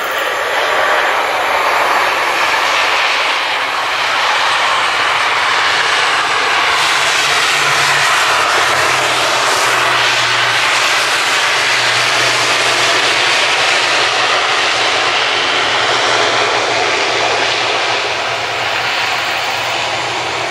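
Passenger airliner's engines roaring as it rolls along the runway and passes close by. The roar swells to its loudest about halfway through, with a sweeping whoosh as it goes past, then holds steady.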